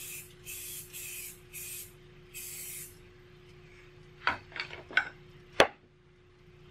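Five short hisses from a pump spray bottle of CA glue accelerator, sprayed onto thin CA glue and sawdust packed into a crack in a wooden knife handle to cure the glue. Then a few light knocks and one sharp click as bottles are handled on the bench.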